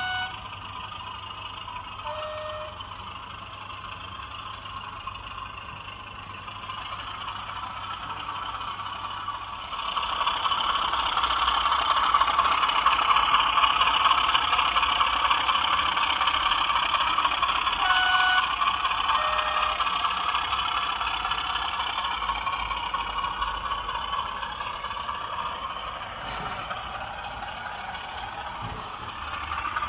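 Class 33 diesel locomotive sound file (Sulzer 8LDA28 engine) playing through a model locomotive's small decoder speaker, the engine running and getting clearly louder about ten seconds in, then easing toward the end. A few short beeping tones sound near the start and again in the middle.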